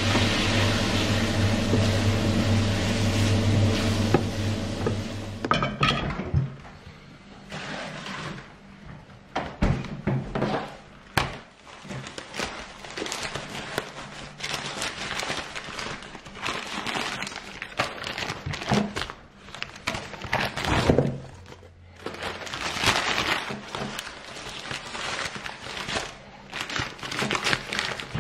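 A minced filling sizzles in a stainless-steel frying pan as a wooden spoon stirs it, over a steady low hum, and stops about five seconds in. Then come scattered knocks and handling sounds on a wooden chopping board. Near the end, paper crinkles as raw meat is unwrapped from its wrapping.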